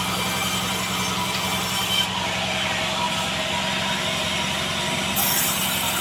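Sawmill band saw cutting a log of Bayur wood: a steady machine hum under a dense sawing noise, whose high hiss thins about two seconds in and comes back near the end.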